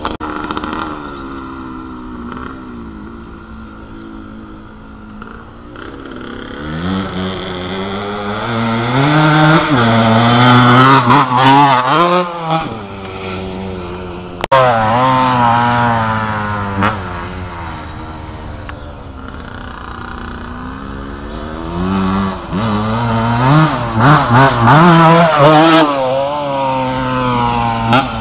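Suzuki RM 125 single-cylinder two-stroke dirt bike being ridden, its engine note climbing and dropping as it revs through the gears. It grows loud twice as it passes close by, once about a third of the way in and again near the end.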